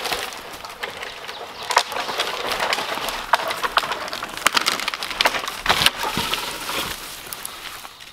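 Dry dead wood and forest brush crackling and snapping, an irregular run of sharp cracks over crunching, as a fallen tree is pulled free and handled.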